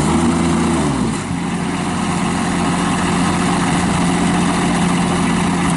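Kubota diesel engine of a Toro Dingo TX525 mini track loader running. Its pitch rises and falls once in the first second, then holds steady.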